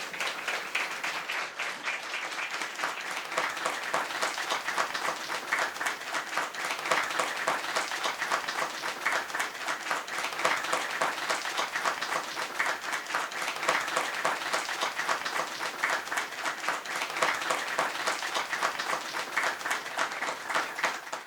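Audience applauding: many hands clapping in a steady, dense patter that stops abruptly at the end.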